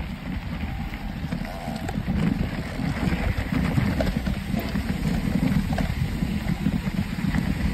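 Wind rumbling and buffeting on the microphone of a mountain bike moving along a dirt trail, with scattered light clicks and rattles from the bike over the rough ground.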